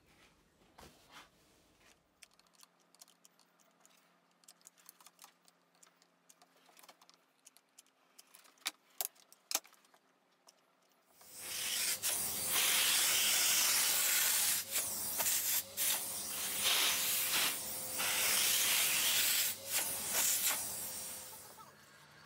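Workshop vacuum running, its hose nozzle worked over the surface of a wooden board: a loud, even hiss with a faint steady hum that starts abruptly about halfway through, dips briefly as the nozzle moves, and stops near the end. Before it, only a few faint clicks and knocks.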